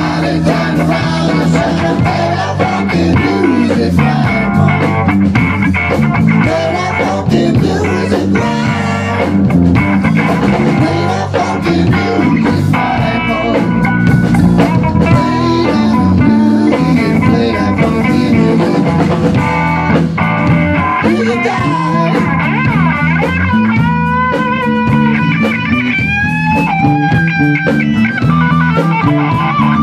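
A rock band playing: electric guitar over electric bass and a drum kit.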